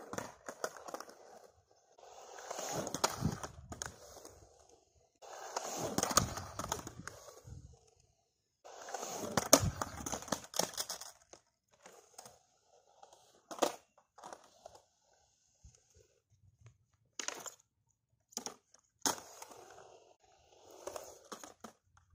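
Skateboard on hard urethane wheels rolling over concrete in three runs of a few seconds each, broken by sharp clacks of the trucks and tail hitting the quarterpipe coping during 50-50 grinds and tail stalls. Later come single sharp clacks a few seconds apart.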